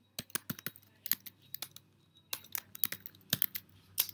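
Typing on a computer keyboard: short irregular runs of key clicks with brief pauses between them.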